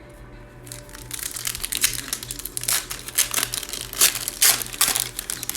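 Cellophane wrapper of a trading card pack crinkling as it is torn open and pulled off the cards. It comes as a run of loud, irregular crackles starting about a second in.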